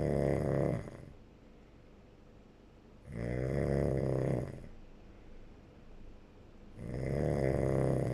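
Snoring during sleep, in a slow even rhythm: one snore dies away at the start, a full one follows about three seconds in, and another begins about a second before the end, one roughly every three and a half to four seconds.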